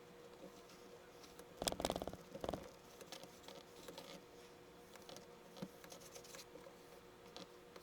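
Kinetic sand being scratched and scraped, sped up four times: a quick run of rapid scratching strokes about a second and a half in, then light scattered scrapes and ticks.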